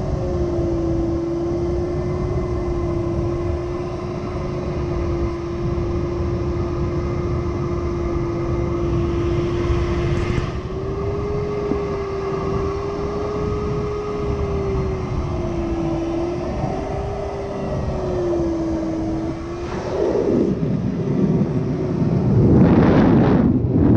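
A glider variometer's single audio tone, holding a pitch and then wavering gently up and down as the rate of climb changes, over the steady rush of air past the canopy of a Nimbus 3DT sailplane. The tone stops a few seconds before the end, and the air rush grows louder.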